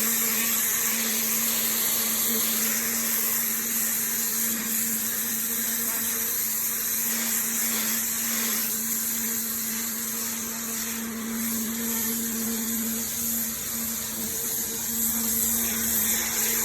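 Pressure washer running steadily: a constant motor-and-pump hum under the hiss of the high-pressure water jet.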